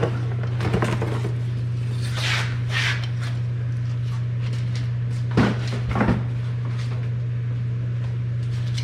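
Things being handled and set down: a few short knocks and rustles, two louder knocks about five and six seconds in, over a steady low hum.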